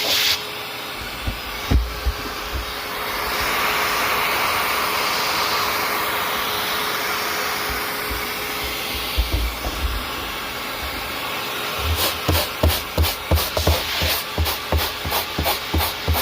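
Vacuum cleaner running steadily with a constant whine, its rushing air swelling and easing as the nozzle works the velcro. In the last few seconds come rapid, even scratching strokes, about three a second, from a short wire cat brush raking dog hair out of the velcro.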